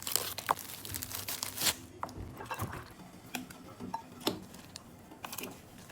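Dried luo han guo (monk fruit) being cracked open by hand: irregular crackling of the brittle shell with scattered sharp clicks and light knocks.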